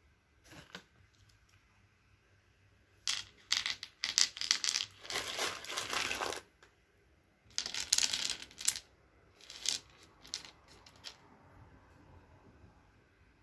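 Plastic sweet bag crinkling as gummy and foam sweets are tipped out onto a bamboo tray, in two long crackly stretches, then a few light clicks of single sweets being dropped.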